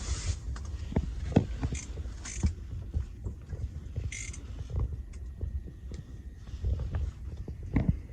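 Wind buffeting the microphone in a low, uneven rumble, with scattered knocks and a few short hisses.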